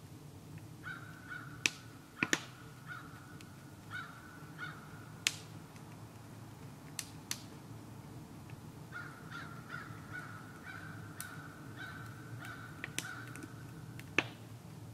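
Wood fire in a stove boiling maple sap: sharp crackles and pops over a steady low rumble. A bird calls in two runs of short repeated notes, one in the first few seconds and one in the middle.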